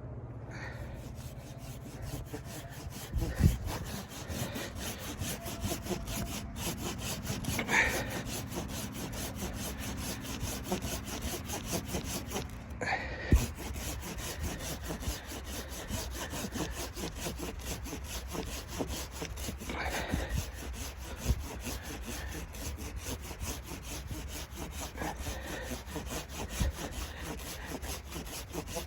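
Hand saw cutting wood in a steady run of back-and-forth strokes, with a few sharper knocks along the way.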